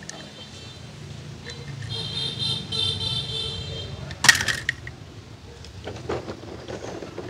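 A die-cast toy car being handled over a tub of water: a single sharp hit about four seconds in, then water sloshing as a hand reaches into the tub. A high pulsing tone sounds in the background earlier on.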